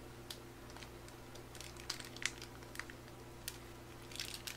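Plastic sauce pouch crinkling in short, scattered crackles as it is squeezed and wrung to push out the last of the sauce.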